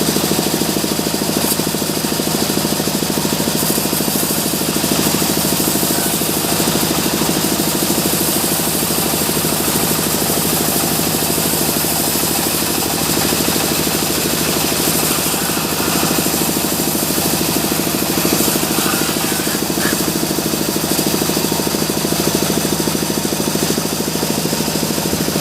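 Sawmill machinery running steadily: a loud, continuous mechanical noise with a fast rattling pulse.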